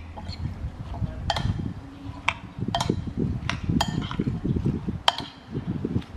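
Metal spoon tossing a dressed octopus salad in a ceramic bowl: wet squishing of the sauced food, with about six sharp clinks of the spoon against the bowl.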